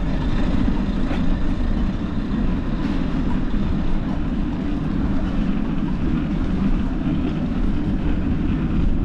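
Steady low rumble of wind buffeting the microphone and tyre noise from a bicycle rolling over a paved street.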